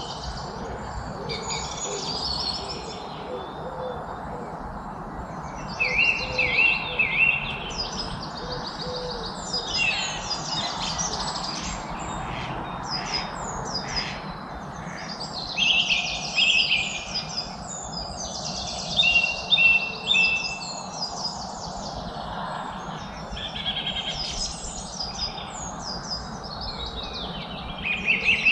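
Several songbirds singing and chirping in bursts of rapid trills and chirps every few seconds, over a steady background hiss.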